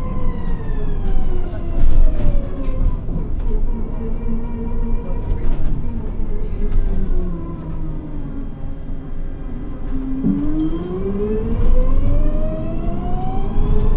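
Electric traction motor of a Switch MetroCity EV bus whining loudly, several tones falling together as the bus slows, then rising again from about ten seconds in as it pulls away, over tyre and road noise.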